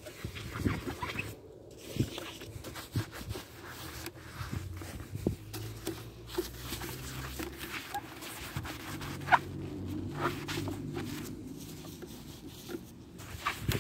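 A soapy sponge scrubbing a scooter's plastic bodywork: irregular rubbing and scraping with scattered clicks and a few short squeaks.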